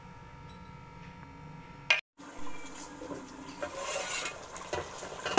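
Faint room hum, then a sharp click and a brief cut about two seconds in. After it, a metal lid is handled over a cooking pot and a spoon scrapes and clinks through the chicken nihari in the pot, with a sharp knock at the end.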